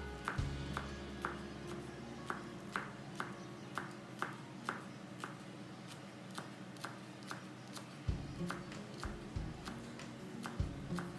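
Chef's knife slicing a spring onion on a bamboo cutting board, each cut a sharp tap of the blade on the wood, about two a second and very even, over soft background music.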